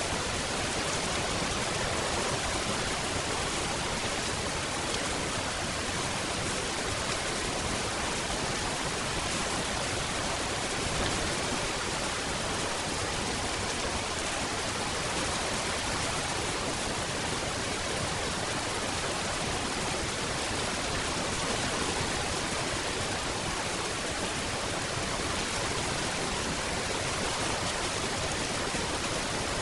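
Steady rain falling, an even unbroken hiss without distinct drops.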